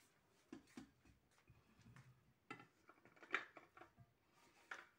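Faint, scattered knocks and clinks of a metal saucepan as drained boiled potato chunks are tipped out of it into a glass bowl.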